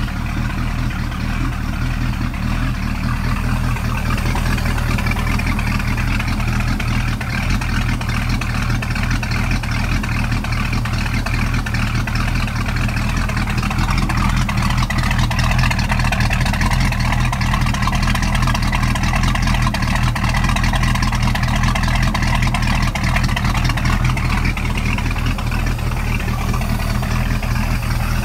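1976 MerCruiser 233 marine Ford 302 V8 running steadily on a test stand, its exhaust coming straight out of open rubber exhaust hoses.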